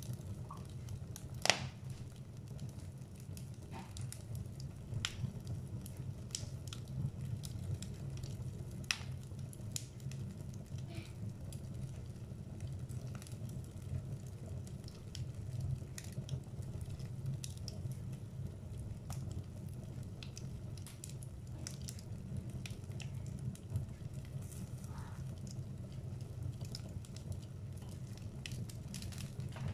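Wood logs burning in a fireplace: a steady low rush of flame with scattered sharp crackles and pops. The loudest pop comes about a second and a half in.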